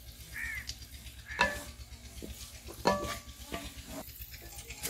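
Wooden spatula stirring whole spices (green cardamom, cloves, cinnamon) as they fry in a little hot oil in a steel pot, with a sizzle and several sharp knocks and scrapes of the spatula against the metal.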